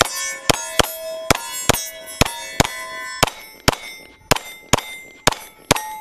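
Glock 9mm pistol firing a steady string of shots, about two a second. Each shot is followed by the ringing clang of a steel plate target being hit.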